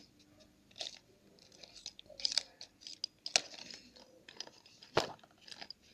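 Scattered small clicks and crackles from handling slime-making materials and containers, with one sharper knock about five seconds in.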